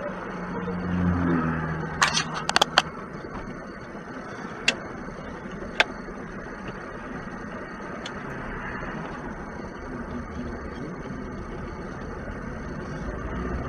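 Steady engine and road noise heard inside a moving car through a dashcam microphone. A quick run of sharp clicks comes about two seconds in, with single clicks a few seconds later.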